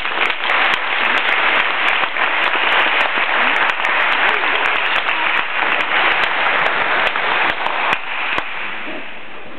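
Audience applauding, a dense patter of many hands clapping that stops about eight and a half seconds in.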